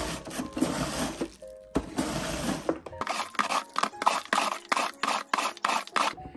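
Cabbage wedge scraped back and forth across the blade of a plastic mandoline slicer, shredding it: two long strokes, then quicker strokes about four a second from about three seconds in. Background music plays underneath.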